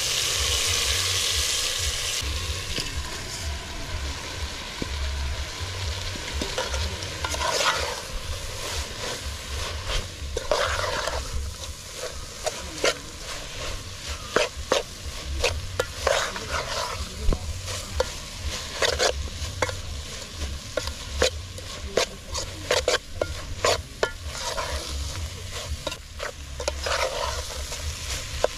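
A long metal spoon stirring small fish and tomatoes in a large metal cooking pot, scraping and knocking against the pot's sides many times over a steady sizzle of frying. The sizzle is loudest in the first couple of seconds, and the scrapes and knocks grow frequent from about seven seconds in.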